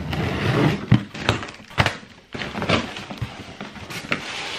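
Unboxing sounds: scissors cutting packing tape on a cardboard box, then the cardboard flaps being pulled open and a foam packing sheet lifted, with rustling and several sharp knocks of cardboard.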